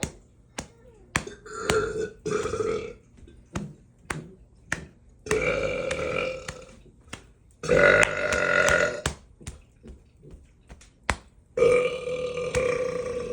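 A man burping loudly again and again: two short burps in the first three seconds, then three long, drawn-out ones of one to two seconds each, the last running on past the end. Sharp clicks fall in the gaps between them.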